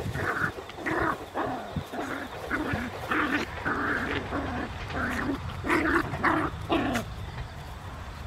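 Two puppies play-fighting, giving a rapid string of short growls and yips, about a dozen in all, that stop about seven seconds in.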